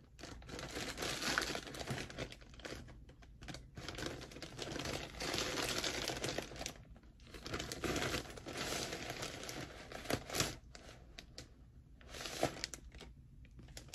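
A mailed package being torn open and its wrapping crinkled and rustled by hand, in uneven bursts with short pauses and a few sharp crackles.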